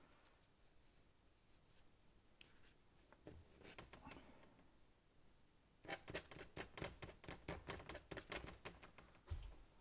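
Paintbrush dabbing and scratching on paper, quiet at first, then a quick run of short taps about five a second for the last few seconds, with a dull thump near the end.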